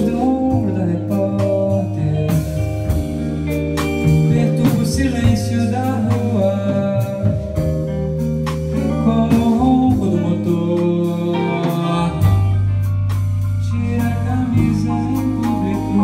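Live rock band playing: a singer over electric guitar, electric bass, keyboard and drum kit.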